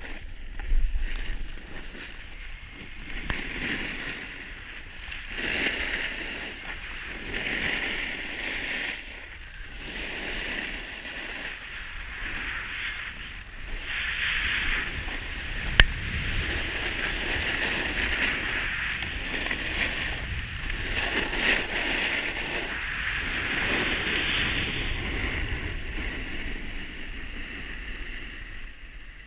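Hiss and scrape of edges sliding and carving over groomed snow, swelling with each turn every second or two, with one sharp click about halfway through.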